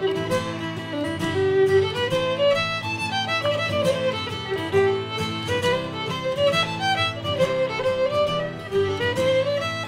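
Background music: a fiddle melody over plucked string accompaniment.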